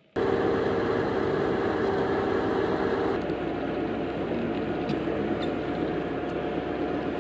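A crane's engine running steadily, a constant dense rumble that shifts slightly about three seconds in.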